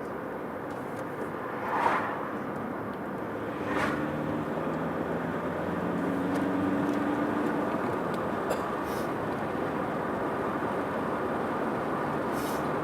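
Steady road and engine noise of a car being driven. Two short, sharp sounds stand out about two and four seconds in, with a faint held tone between about four and eight seconds.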